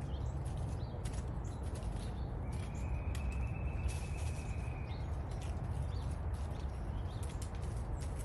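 Falling leaves landing with scattered light ticks, over a steady low rumble. A little over two seconds in, a single high, level call note sounds for about a second.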